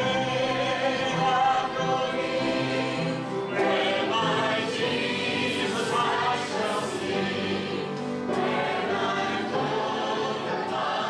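A church congregation and a family choir of men's, women's and children's voices singing a gospel hymn chorus together, with acoustic guitar accompaniment.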